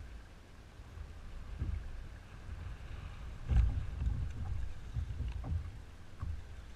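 Wind buffeting the camera microphone and choppy water slapping against a kayak hull, rising and falling in gusts, with a louder knock about three and a half seconds in.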